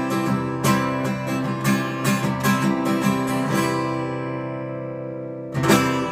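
Acoustic guitar strumming chords, then a chord left to ring and fade for about two seconds, and one last strummed chord near the end that is stopped short: the close of a song.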